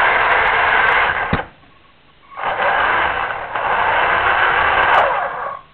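Small radio-controlled vehicle's motor and drivetrain whirring as it drives, cutting out for about a second early on and again near the end as the throttle is released, then picking up again.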